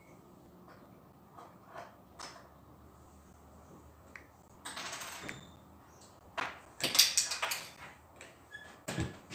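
Scattered clicks and knocks of small plastic LEGO pieces off-camera, with a brief rustle about five seconds in and a rattling run of sharp clicks about seven seconds in.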